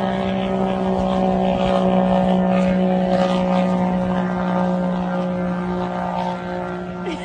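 A steady motor drone holding one constant pitch, easing off slightly in loudness near the end.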